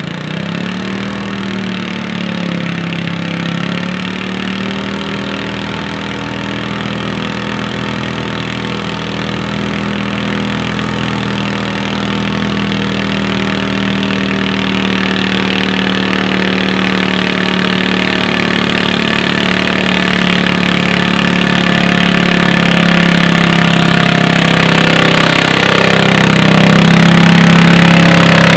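Garden pulling tractor's engine running hard under load as it drags a weight-transfer sled down the track, one steady engine note growing steadily louder as it comes closer. The note dips briefly in the first few seconds and drops a little lower near the end as the sled load builds.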